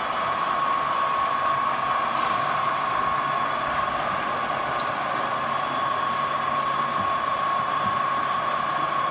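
SHW UF 1 universal tool milling machine running under power: a steady mechanical hum with a constant high-pitched whine over it.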